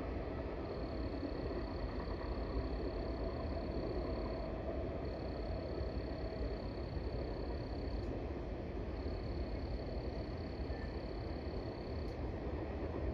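Night chorus of calling frogs and insects: a high, thin trill that comes in bouts of about three seconds with short gaps, over a steady low background noise.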